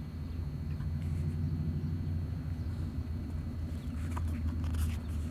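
Steady low rumble of road traffic in the background, with no other sound standing out.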